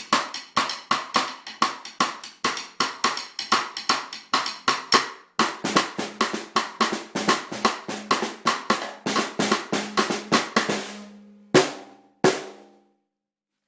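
Hand-hammered 5x14 Ludwig Black Beauty brass snare drum played with sticks: a steady run of strokes at about four to five a second, then two single hits near the end that ring on. The drum is straight out of the box with its heads still loose and untuned.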